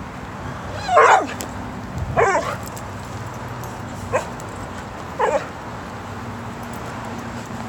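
Terrier-mix dog giving four short, yipping barks, excited at a squirrel up in a tree; the first two are the loudest.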